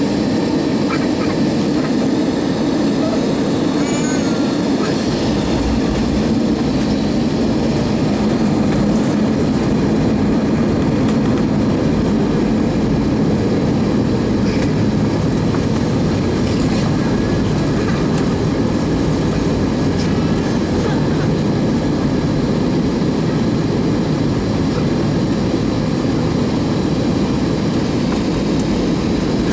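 Steady cabin rumble inside an Airbus A320-232 as it rolls along the ground, its IAE V2500 engines and wheels giving a constant low noise.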